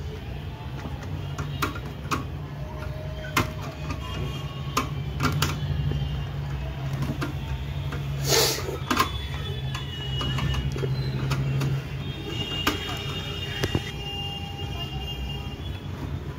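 Screwdriver working a screw loose in a desktop computer's steel chassis: irregular sharp metal clicks and scrapes, one longer scrape a little past the middle, over a steady low hum.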